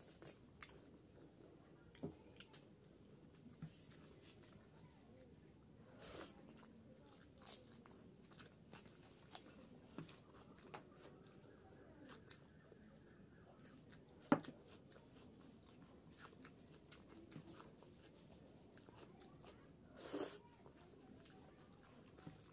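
Close-up eating sounds of a person chewing rice and daal eaten by hand: soft wet smacks and clicks of the mouth, with a few louder ones scattered through.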